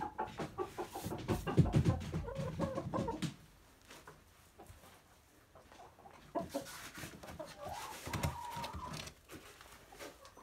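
Chickens clucking close by, dense and loud for the first three seconds with a few low thumps; after a short lull the clucking resumes, with one longer drawn-out call about eight seconds in.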